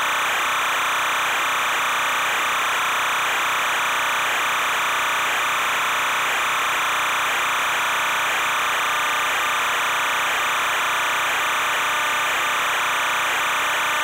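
Steady hiss with a high whine that wavers slightly in level throughout.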